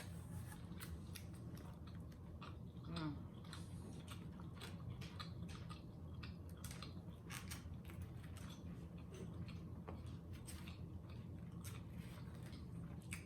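Close-up chewing and mouth sounds of a person eating: irregular wet clicks and small crunches, over a low steady hum.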